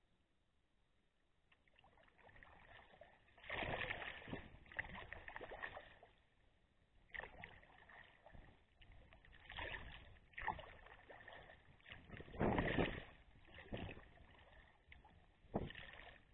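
Kayak paddle strokes: the blade dips and splashes and water washes along the hull in irregular bursts every one to three seconds. The first second or two is nearly quiet while the boat glides.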